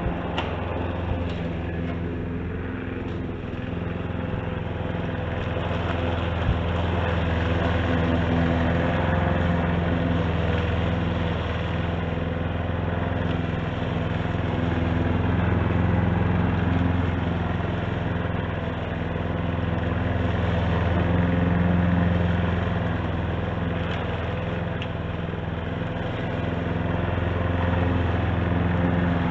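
Lawn mower engine running steadily at working speed while cutting grass, its level rising and falling slightly.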